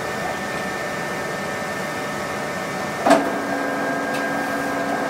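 Zebra ZXP Series 8 card printer running its roller-cleaning cycle: a steady motor hum, then a click about three seconds in and a changed hum as it feeds the cleaning card in to scrub the rollers.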